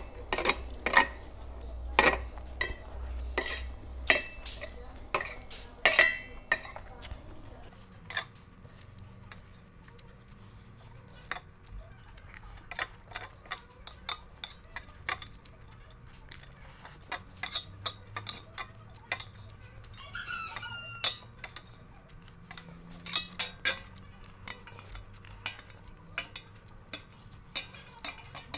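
Metal fork and spoon clinking and scraping against a stainless steel tray as the last noodles are scooped up. There are many short clinks throughout, loudest and most frequent in the first several seconds.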